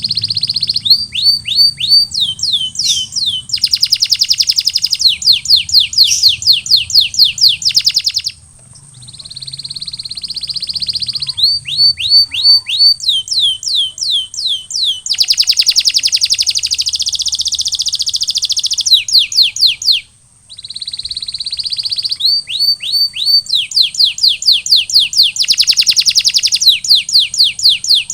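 Canary singing: runs of rapidly repeated, downward-sweeping whistle notes alternate with fast, buzzy rolling trills. The song breaks off briefly about a third of the way in and again about two-thirds in.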